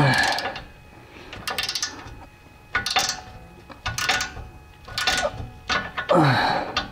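Socket wrench with a 16 mm socket worked in short strokes on a stiff rear shock absorber bolt of a 1999 VW Passat, its ratchet clicking on each return stroke about once a second. Twice, at the start and near the end, a louder sound slides down in pitch.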